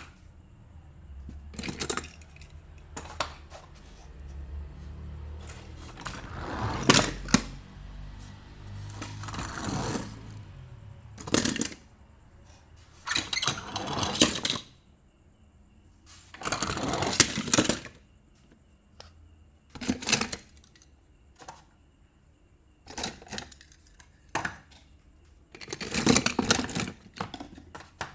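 Die-cast metal toy cars clinking and rattling against one another as they are handled and taken out of a box of cars, in irregular bursts with short pauses between.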